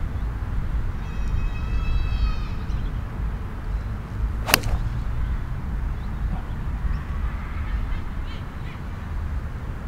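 A single sharp crack of a 5-iron striking a golf ball off the tee, about four and a half seconds in, over a steady low rumble of wind. A bird calls once, a drawn-out slightly falling caw, about a second in.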